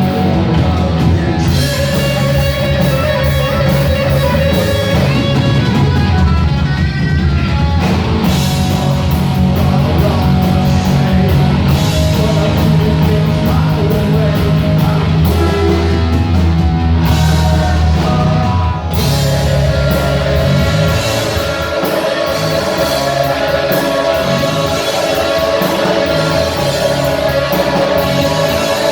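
Heavy metal band playing live and loud: distorted electric guitars over bass and drums.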